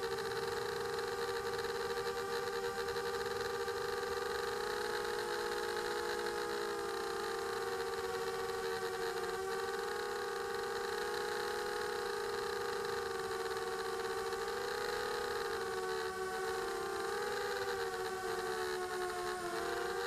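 Electric motors and propellers of a small drone whining steadily as heard from its onboard camera, the pitch shifting slightly with throttle and wavering up and down near the end.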